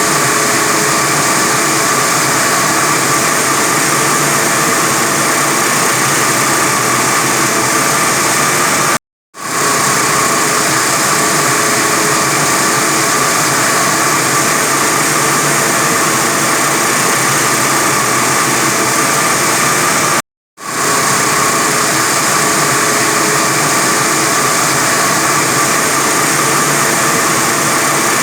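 45 kW diamond wire saw running steadily while cutting reinforced concrete: a constant mechanical hiss with a steady high tone over it. The sound cuts out suddenly twice and fades back in each time.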